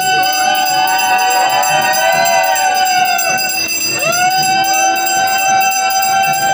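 Temple aarti bells ringing continuously. Over them are two long, sustained blown notes that swell in and fall away: the first ends about three and a half seconds in, and the next begins about four seconds in.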